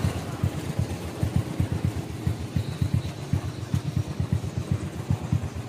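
A small engine running close by, a low, rapid chugging of several beats a second.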